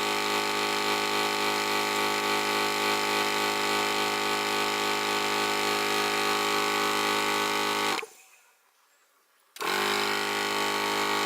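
Thumper Max dual 12 V air compressor running steadily under load as it inflates a flat tyre. It winds down and stops about eight seconds in, starts up again a second and a half later, and winds down again near the end.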